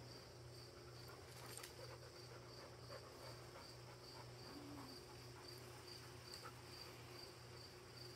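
Faint cricket chirping: an even, high-pitched pulse of about two to three chirps a second, over a low steady hum.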